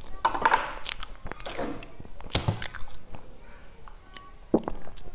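A person chewing and eating close to a clip-on microphone: mouth and chewing sounds with small clicks and a couple of brief swishing noises.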